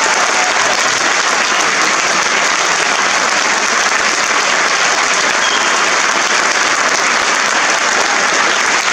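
Audience applauding steadily: dense, continuous clapping.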